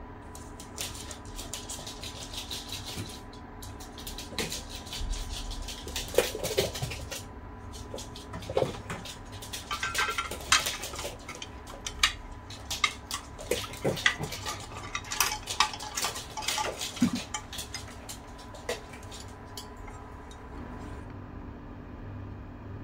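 Dishes and cutlery clinking and clattering in irregular knocks and taps, over a faint steady hum.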